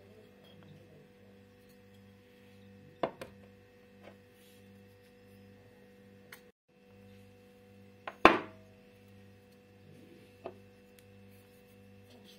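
Sharp clinks of a spice container or spoon knocking against a glass bowl as ground spices are tipped in. There are several clinks, the loudest about eight seconds in with a short ring, over a faint steady hum.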